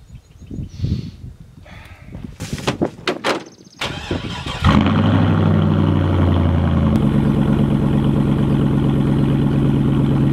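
A few knocks and thumps, then a Chevrolet Avalanche's V8 cranks briefly and starts about four and a half seconds in. It runs at a steady fast idle that steps down slightly about two seconds later.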